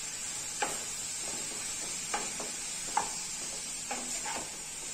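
Wooden spatula stirring sliced ivy gourd, onion and green chilli in a non-stick pan, with about five short scrapes and knocks against the pan. A steady low sizzle of the vegetables frying on a low flame runs under the strokes.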